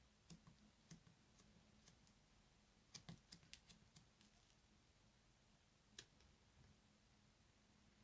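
Very hard white slime being handled: faint, sharp clicks and small pops, a quick run of them about three seconds in and a single one near six seconds, over near silence.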